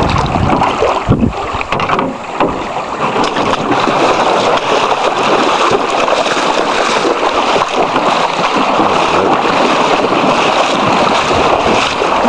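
River water rushing loudly around a canoe as it runs down the channel, with wind buffeting the microphone in the first two seconds.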